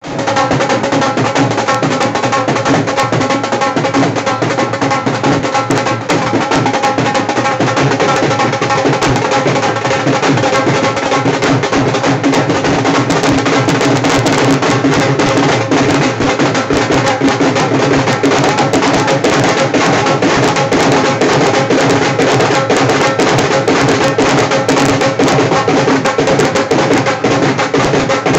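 Live dholak drumming playing a fast, loud dance beat without a break, with a few steady held notes underneath.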